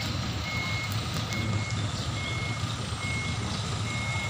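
Heavy-vehicle backup alarm beeping a single high tone about once a second over a diesel engine running.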